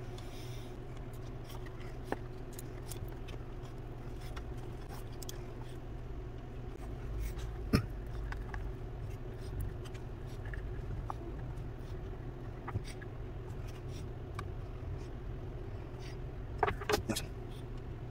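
Steady low room hum, with a few scattered small clicks and scrapes from brushing epoxy into fiberglass cloth using a plastic mixing cup and brush. The sharpest click comes a little before halfway, and a short cluster of them comes near the end.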